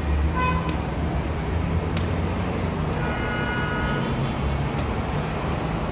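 Road traffic: engines of passing cars, vans and trucks running, a steady low rumble. A short higher-pitched tone stands out about three seconds in.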